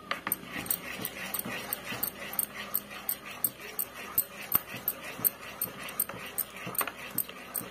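A steel spoon stirring thick gram-flour batter in a plastic bowl: rhythmic scraping and squelching strokes, about three a second.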